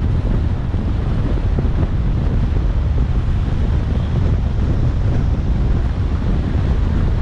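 Steady, loud wind noise buffeting the microphone, a continuous low rumble with no breaks.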